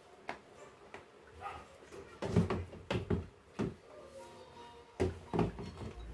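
Plastic clothes-cabinet panels being handled and fitted during assembly: a string of hollow knocks and thumps, loudest in a cluster about two to four seconds in and again around five seconds.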